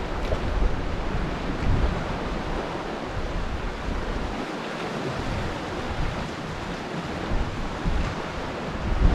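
Sea swell surging and washing around rocks, with wind buffeting the microphone in uneven low gusts.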